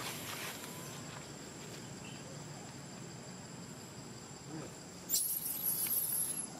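Insects buzzing steadily in the forest, with a much louder high-pitched insect buzz starting suddenly about five seconds in and holding on a thin, slowly sinking tone.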